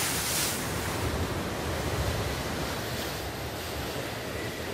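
Rough storm sea breaking and washing over the bow and casing of a surfaced submarine, with wind. A burst of spray hisses at the very start, then a steady rushing wash of water with a low rumble.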